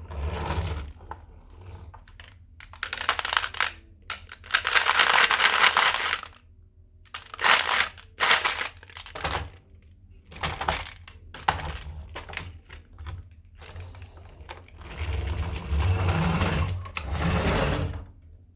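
Marbles rolling and clattering down a toy marble run in repeated bursts, each run lasting from under a second to about two seconds, with short pauses between them.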